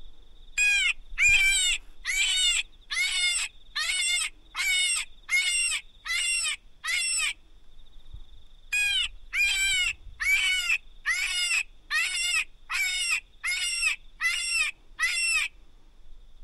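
Electronic predator caller playing a fox-luring animal call: two runs of short cries, each rising then falling in pitch, about one and a half a second. Nine cries come, then after a pause of about a second and a half eleven more. A faint steady high whine runs underneath.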